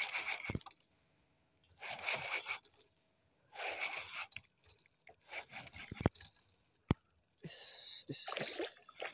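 Bursts of metallic jingling and rattling, five or so, each under a second long, with a few sharp knocks between them.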